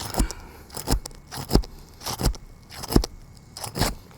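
A series of sharp, crunching knocks on asphalt roof shingles, about six or seven in all, roughly one every two-thirds of a second.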